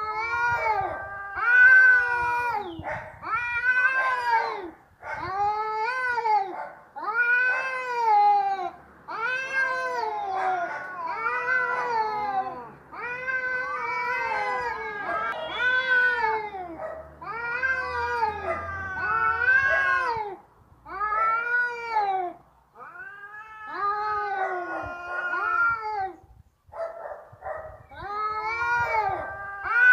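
Cats yowling in a fight: a long run of drawn-out calls, back to back with short gaps, each rising then falling in pitch, with two voices sometimes overlapping.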